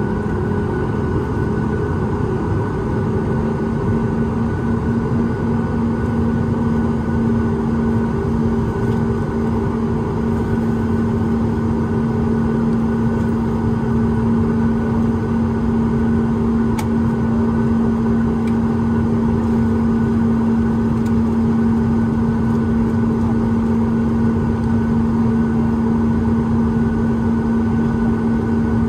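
Boeing 737 MAX 8's CFM LEAP-1B jet engines running steadily, heard inside the passenger cabin as a constant drone with a held humming tone. The tone rises slightly in pitch and loudness a few seconds in.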